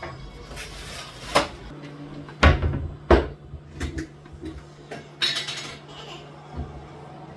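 Kitchen dishes and utensils knocking and clinking as they are handled: several separate knocks, the loudest two about two and a half and three seconds in, and a brief scraping clatter a little after five seconds, over a low steady hum.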